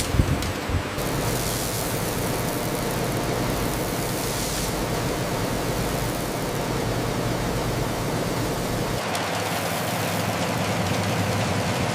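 Steady industrial machinery noise, a hum and hiss of running equipment, with a few brief knocks right at the start. About nine seconds in the sound changes: the deep rumble drops away and a brighter hiss takes over.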